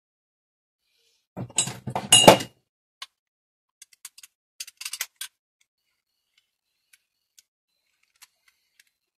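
Bicycle pedal parts handled by hand: a loud clatter of the pedal body and metal axle knocking together about a second and a half in, then a quick run of small metallic clicks, and a few faint ticks near the end.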